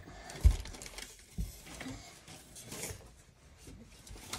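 Handling noise: soft rustling with scattered knocks. The sharpest thump comes about half a second in and a lighter one near a second and a half.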